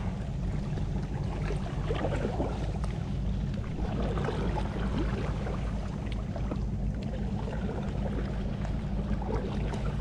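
Water splashing and trickling lightly around a fishing kayak, over a steady low rumble of wind on the microphone.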